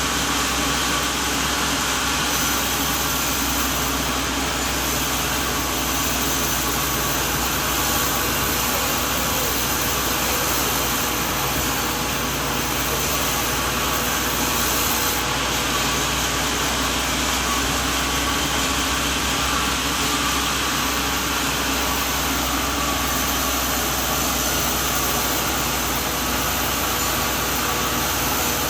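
Sawmill machinery running steadily: a constant engine drone with an even hiss over it that does not rise or fall.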